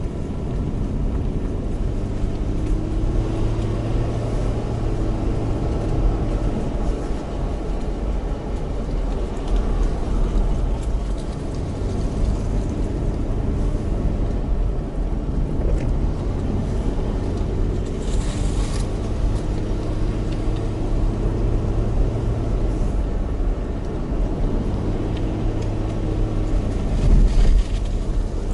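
Car engine pulling steadily uphill with its four-speed automatic held in second gear, heard from inside the cabin over tyre and road rumble. There is a brief hiss about two-thirds of the way through and a bump near the end.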